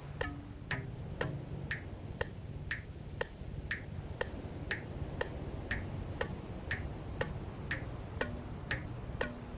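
Sharp clicks repeating evenly at about two a second, like a ticking clock, over a low steady drone with short low notes in between: a slow percussion pulse in relaxation music.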